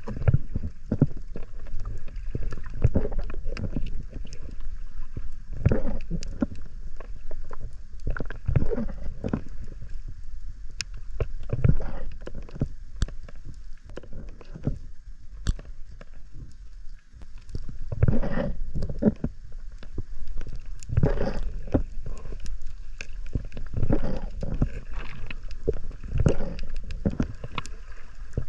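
Muffled underwater water movement on a submerged camera: irregular low rumbling surges and gurgles, with a few faint sharp clicks.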